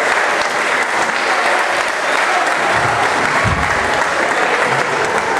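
Audience applauding steadily, dense continuous clapping.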